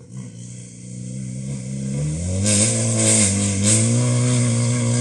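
Rally car engine approaching unseen on the stage, getting steadily louder, its note rising from about a second in and rising and falling with the throttle. A hiss joins from about halfway through.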